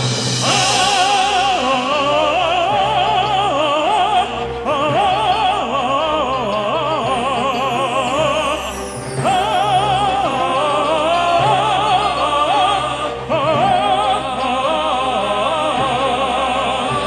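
Vocal quartet singing in an operatic crossover style, several voices with wide vibrato, over orchestral backing. The singing breaks briefly between phrases about four, nine and thirteen seconds in.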